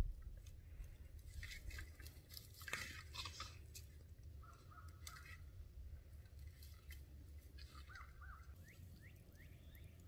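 Faint crackling and crunching of dry brush and leaf litter, loudest as a cluster of sharp snaps about two to three and a half seconds in, with a few short bird chirps in the middle and near the end over a low outdoor rumble.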